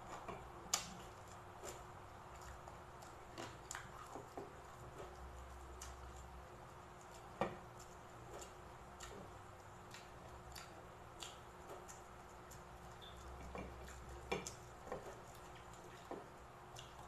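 Close-up eating sounds: irregular soft clicks and wet smacks of chewing, with fingers picking at rice and crispy fried pork belly on a plate; a few sharper clicks stand out. A faint steady hum lies underneath.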